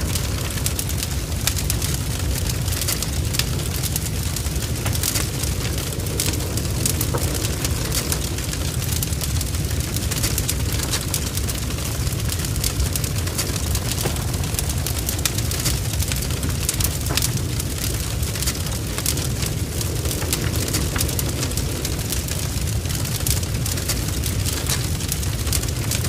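Burning wood fire, its logs crackling and spitting in a constant stream of sharp pops over a steady low rumble of the flames.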